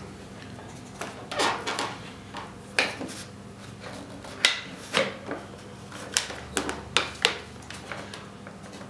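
Rubber bands being stretched over a foam model-plane wing and snapping against it, with hands rubbing and handling the foam: a string of sharp snaps and short scrapes, the loudest about four and a half seconds in.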